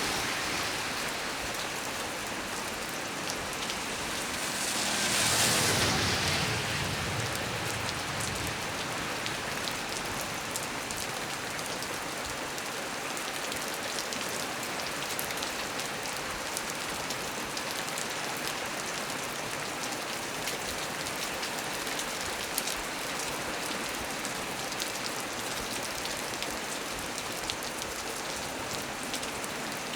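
Heavy rain falling steadily on a small tree's leaves, with scattered louder drop ticks. About five seconds in, a broad whooshing swell rises and fades over a few seconds.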